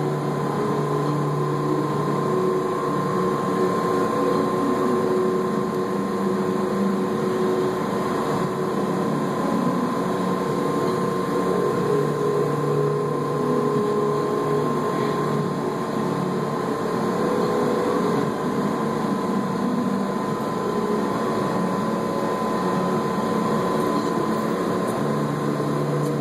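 Steady mechanical hum: a constant drone with one steady higher tone over an even background hiss, unchanging throughout.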